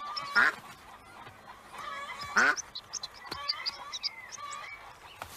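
Farmyard ducks quacking, with two loud calls about half a second and two and a half seconds in, over fainter high chirping.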